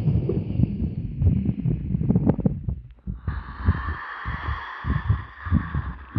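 Amplified sounds from inside a live human body, picked up by a stethoscope-like microphone: dense, irregular low thumps and rumbles. A steady hiss joins in about three seconds in.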